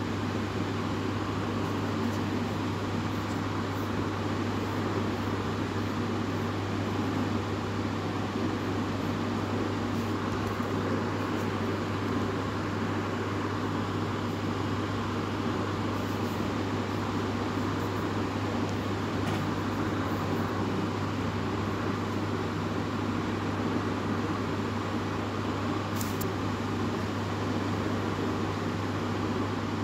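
A steady low hum with a constant hiss over it, unchanging throughout, like a fan or air-conditioner running.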